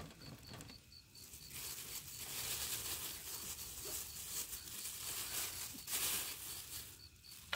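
Plastic meat packaging crinkling and rustling as it is handled and pulled off a slab of raw pork belly.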